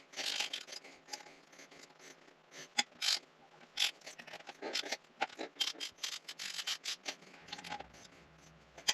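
Ratchet wrench clicking in short, irregular runs, with scattered sharp clicks, as cylinder head bolts on a Subaru EJ25 flat-four are turned their final 90 degrees.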